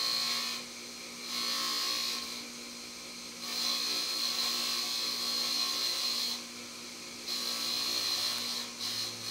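Bench grinder running with a steady motor hum while small carburettor jets and an emulsion tube are pressed against its spinning wheel to clean them. This gives four spells of hissing scraping, one long one in the middle, with only the hum between them.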